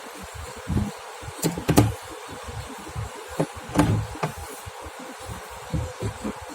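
Sharp clicks and light knocks of screws and a hand tool working on a steel concealed cabinet hinge as it is fastened to the door, in small clusters about a second and a half in and again around four seconds.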